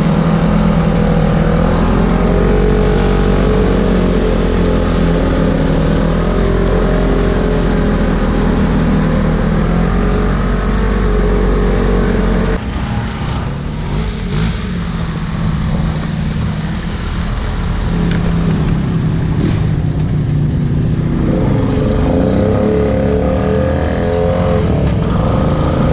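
ATV engine running under changing throttle while riding, its pitch rising and falling. About halfway the deep rumble drops away abruptly and the note thins out, then the engine note builds up again in the last few seconds.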